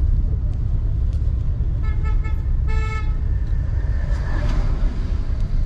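Steady low road and engine rumble of a moving car. About two seconds in a vehicle horn sounds: a few quick beeps, then one short toot.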